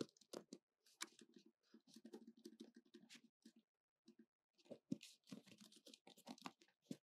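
Faint typing on a computer keyboard: quick irregular key clicks, with a pause a little after the middle.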